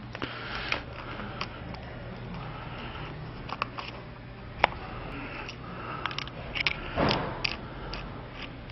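Scattered light clicks and knocks as a cone air filter is handled and a screwdriver is fitted to the worm-drive hose clamp on its velocity stack. There is one sharper knock a little past halfway and a cluster of louder knocks near the end, over a steady low hum.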